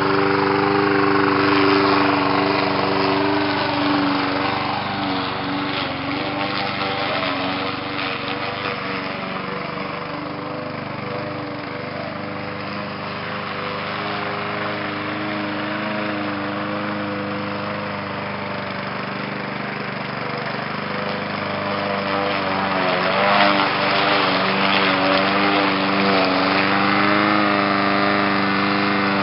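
Small gasoline engine of a walk-behind lawn mower running steadily at mowing speed. It grows quieter through the middle and louder again near the end.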